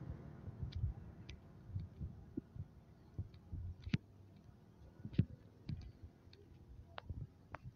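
Faint, irregular clicks and soft low thumps over a low rumble, with no steady engine or voice.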